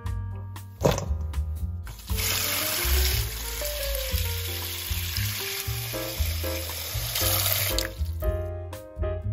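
Tap water running into a stainless steel bowl of cut sweet potato sticks, filling it. It starts about two seconds in and stops near the end, over background music.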